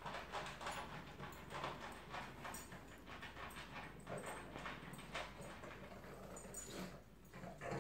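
A dog whimpering on and off.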